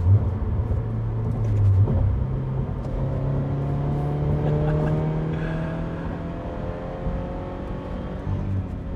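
2022 GR86/BRZ's 2.4-litre flat-four running through a Remark Sports Touring stainless cat-back exhaust, heard from inside the cabin while driving. The exhaust note climbs steadily in pitch as the car pulls, then dips briefly near the end.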